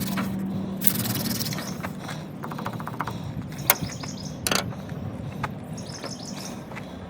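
Hand drill friction fire: a yucca spindle spun between the palms grinds into a water oak fire board with a hissing, rubbing sound, followed by a few sharp clicks. The fire board sits on a metal tabletop that the driller believes is drawing heat away, so no ember forms.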